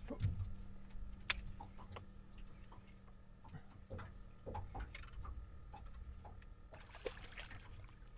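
Quiet scene aboard an aluminium fishing boat: a faint steady low hum with scattered light clicks and knocks, one sharper click about a second and a half in.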